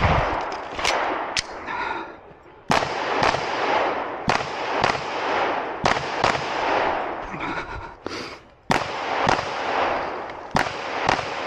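A string of 9mm pistol shots from a Glock 19 in a practical shooting course of fire. About fifteen shots come in quick pairs and threes, roughly half a second apart, each with an echoing tail, and there is a pause of about two seconds before the last groups.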